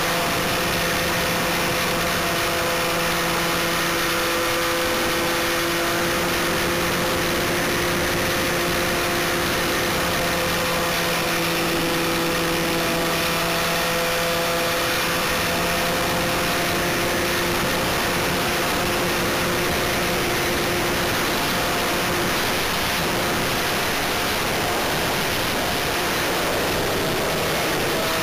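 Electric motor and propeller of a GWS Stearman RC model biplane in flight, heard from a camera on its wing: a steady motor hum that shifts slightly in pitch now and then, under a constant rush of wind over the microphone.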